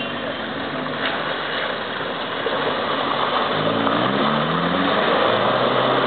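Toyota 4x4's engine labouring through deep mud, revving up in several rising pulls from about halfway through.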